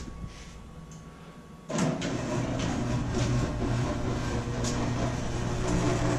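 A steady mechanical hum, like a motor or fan running, starts suddenly about two seconds in and carries on evenly.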